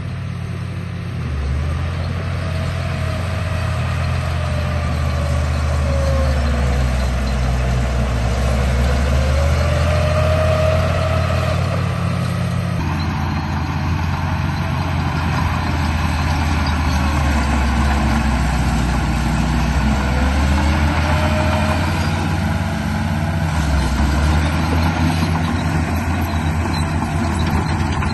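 Radio-controlled bulldozer running: a motor whine rising and falling in pitch as it drives, over a steady low hum. The sound changes abruptly about halfway through.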